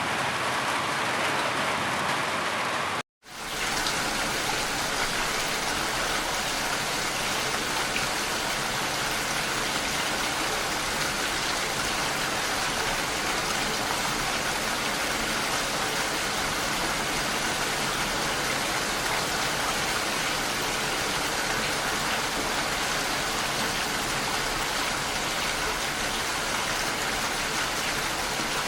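Steady rain falling, a dense even patter. About three seconds in it cuts out for a moment and resumes brighter and hissier.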